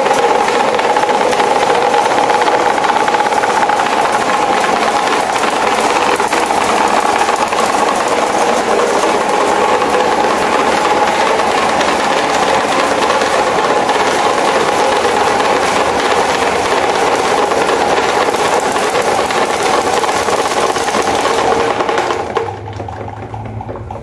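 Broken electric desk fan running with a two-blade propeller: a loud, rough, steady mechanical noise with a steady whine in it. About 22 seconds in it drops off sharply, leaving a quieter low hum.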